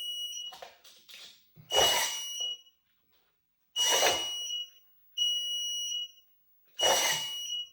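Aftermarket van deadbolt system worked from its key fob: the deadbolts throw with a short mechanical whir-and-clunk, each time with a high electronic beep, repeating about every two seconds. One beep near the end of the sequence comes without the mechanism.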